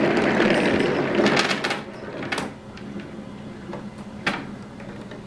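A group of glass marbles rolling together down a balsa-wood marble roller coaster's poster-board track, a loud rolling rumble that dies away about two seconds in. A few sharp clicks of marbles follow, then a faint steady hum.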